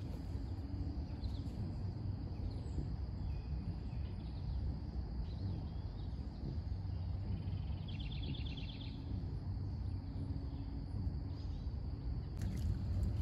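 Outdoor riverside ambience: a steady low rumble with a faint, continuous high-pitched insect drone over it. A short, rapid trill comes about eight seconds in, and there is a sharp click near the end.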